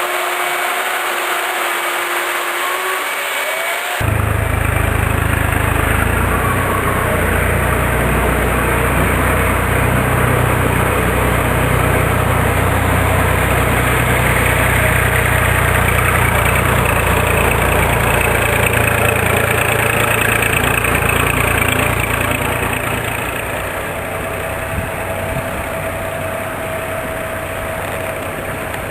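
A motor running steadily with a low hum, which sets in abruptly about four seconds in and eases off near the end.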